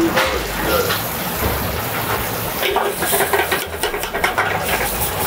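Metal spoon stirring and clinking against a stainless steel sauté pan of sauce on a restaurant range, with several clinks and scrapes close together in the second half. A steady low hum runs underneath.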